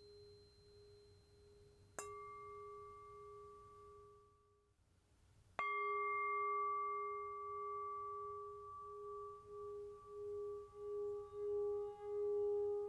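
Tibetan singing bowl struck with a mallet and left ringing, one steady tone with higher overtones. It fades away, is struck again a second later, and then its ring wavers in a pulsing beat that grows louder toward the end.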